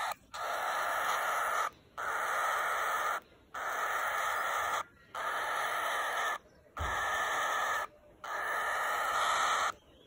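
Cockatiel chick giving a run of six harsh, raspy calls, each about a second and a half long with short breaks between them.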